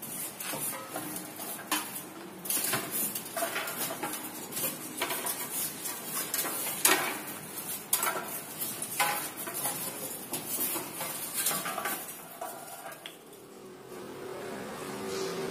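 Metal chips and swarf being brushed and scraped off a stopped lathe into its chip tray: irregular clinks and scrapes of metal on metal. The clatter dies down to quiet room noise near the end.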